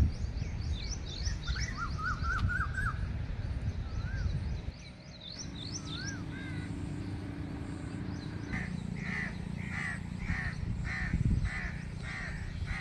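Birds calling outdoors: quick high chirps and short whistled notes in the first few seconds, then a run of harsh, repeated calls, about two a second, through the second half.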